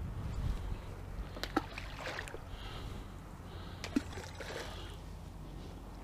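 Balls of groundbait plopping into the river, two sharp splashes about two and a half seconds apart, over a steady low wind rumble on the microphone.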